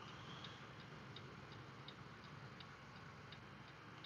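Faint low hum of a semi truck's cab under way, with a quiet, regular ticking about three times a second.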